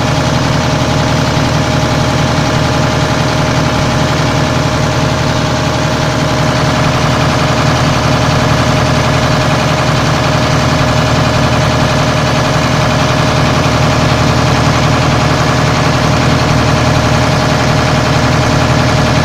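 Pump set running: a steady, loud machine hum with a constant mid-pitched tone over it.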